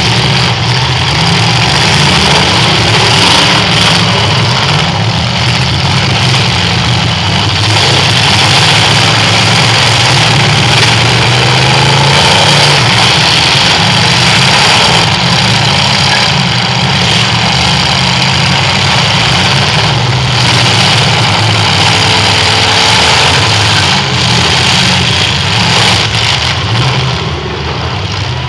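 Several eight-cylinder demolition derby car engines revving hard at once, a loud, continuous din that rises and falls in pitch as the cars push against each other.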